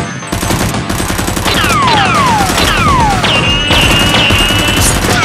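Rapid automatic-gunfire sound effects, a continuous fast rattle of shots that starts just after the beginning, laid over background music. Several falling whistle-like tones cut through the middle.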